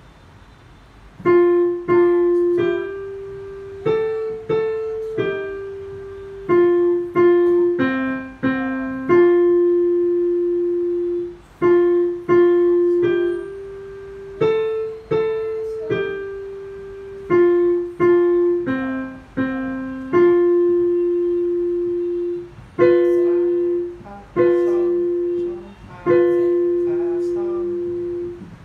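Digital piano playing a slow, simple beginner's melody in the middle register, mostly one note at a time with a few two-note chords. Each note is struck and fades, and the phrases end on longer held notes.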